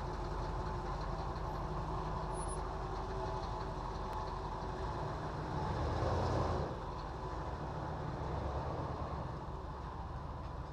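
Engine of a Fleetwood Flair Class A motorhome running at low speed as it pulls away and turns. The sound swells for about a second around six seconds in, then drops back to a steady running hum.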